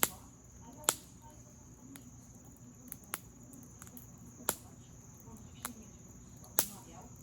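Campfire burning with irregular sharp pops and crackles from the burning wood, the loudest pops about a second in, midway and near the end. A steady high-pitched cricket chirring runs underneath.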